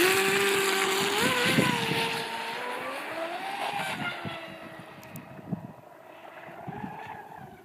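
Radio-controlled catamaran speedboat running fast across the water: a high motor whine with spray hiss, stepping up in pitch about a second in, then fading as the boat speeds away.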